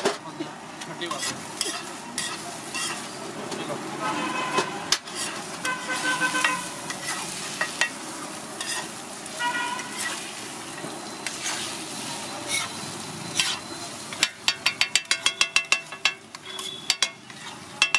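Egg omelet sizzling on a large flat street-food griddle (tawa) while a metal spatula scrapes and knocks against the hot plate. Near the end comes a fast run of sharp taps, about six or seven a second, as the spatula chops the eggs against the griddle.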